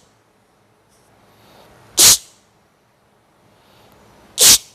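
A person's two sharp, explosive breaths, about two and a half seconds apart, each following a faint drawn-in breath.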